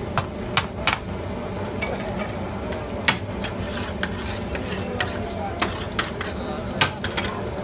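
Long-handled metal spatula clanking and scraping on a large flat metal griddle as pieces of meat are stirred and turned in oil. About a dozen sharp metallic strikes come at irregular intervals over a steady sizzle of frying meat.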